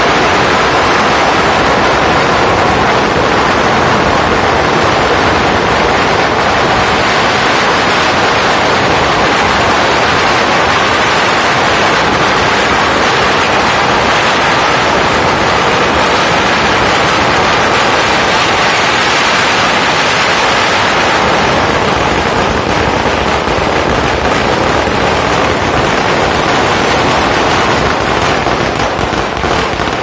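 A long string of firecrackers going off in one continuous dense crackle, thinning out near the end.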